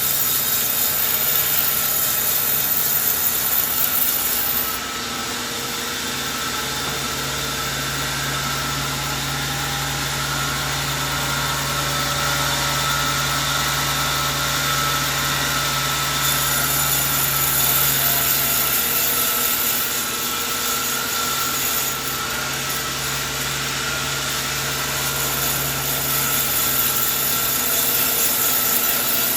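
Sawmill saw running and cutting through coconut tree wood: a steady mechanical hum under a noisy cutting sound. It eases slightly about five seconds in and changes again near nineteen seconds.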